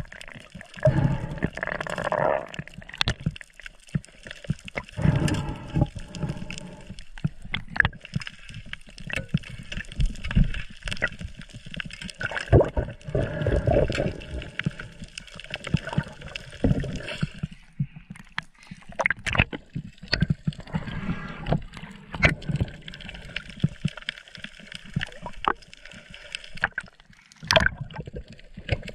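Underwater gurgling and bubbling with uneven swells of water noise, broken by many short clicks and knocks from gear being handled.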